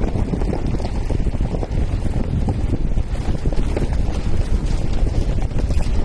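Wind buffeting the microphone over the low rumble of a Toyota Land Cruiser 120 driving on a gravel road.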